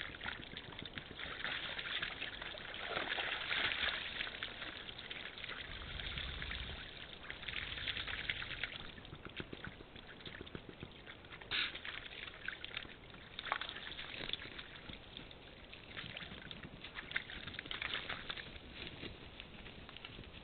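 Red deer hinds and calves wading through a shallow muddy puddle, their hooves sloshing and splashing the water irregularly, with a few sharper splashes or knocks, over a steady hiss.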